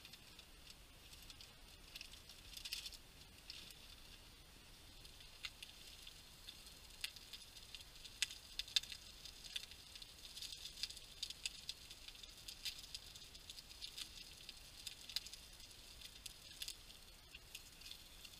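Slices of meat sizzling and spitting in a frying pan on a small gas camping stove: a steady high hiss with scattered crackles and pops. Some rustling of a food packet comes in the first few seconds.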